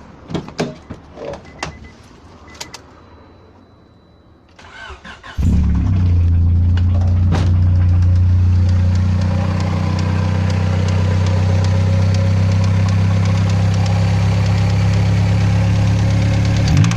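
A few clicks, then a Honda Orthia's engine is cranked and catches about five seconds in, settling into a steady idle. A fast, regular ticking knock runs through the idle, the engine knock the owner is showing.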